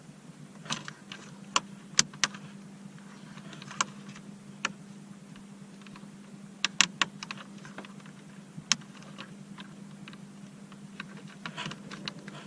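Scattered sharp clicks and light taps of a small hand tool and plastic dashboard trim being worked around the push-start button, over a faint steady hum.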